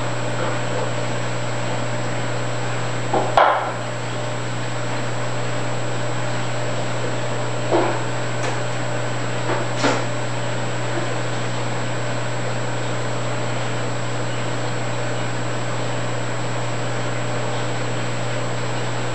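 Steady low hum of running aquarium pumps and equipment, with a few short knocks and clicks: one a few seconds in, others near the middle.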